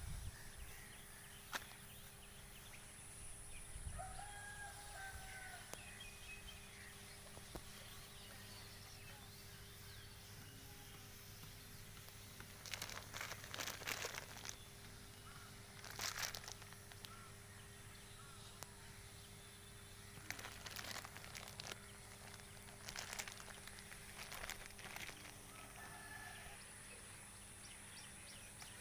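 Quiet outdoor background with a few faint bird calls, broken by several short bursts of rapid clicking or rattling.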